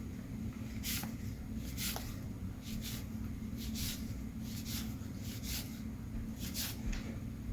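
Baseball trading cards being handled and slid over one another: short papery swishes about once a second, over a steady low hum.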